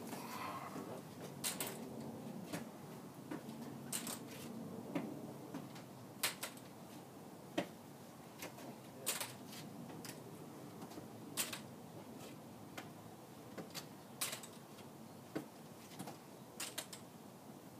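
Sharp, irregular clicks and taps every one to three seconds: the metal legs of a folding walker set down on concrete as it is moved forward step by step.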